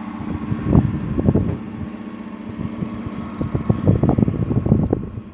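Ford F-150 Lariat pickup running with a steady hum as it drives slowly up a car transporter's steel ramp. Irregular thumps and rattles come and go, busiest about three and a half to five seconds in.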